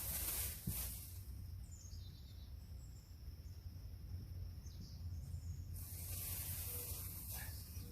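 Outdoor ambience: faint, short high-pitched chirps over a low rumble, with two stretches of hissing rustle, one right at the start and one about six seconds in.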